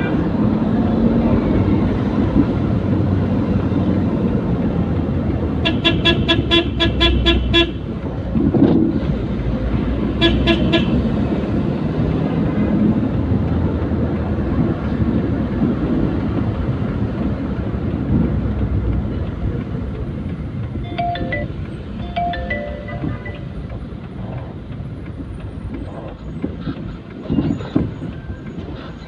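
Vehicle running through traffic with steady road and engine noise, and a vehicle horn honking in quick repeated toots about six seconds in and again briefly about ten seconds in; a few fainter short horn toots come later.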